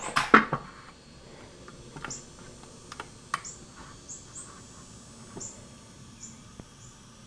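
A long aluminum level knocks against a wall in the first half second. Then come light scattered clicks and scratches of a pencil marking the wall along its edge, with faint short high chirps now and then.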